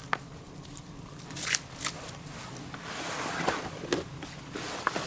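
Rustling of a jacket and a backpack as the pack is slipped off the shoulders and lowered, with a few sharp clicks and knocks along the way.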